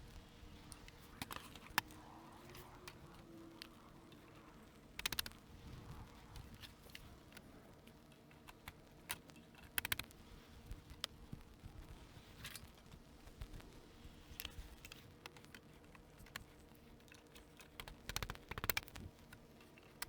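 Light clicks and knocks of plastic snap-lock brackets and composite raised-bed boards being handled and fitted together, with short clusters of clatter about five, ten and eighteen seconds in.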